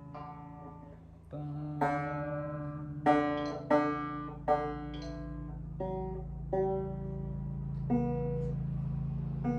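Ortega Falcon banjo being plucked: about eight separate notes, one at a time, each ringing out and fading, over a low string that keeps sounding beneath them.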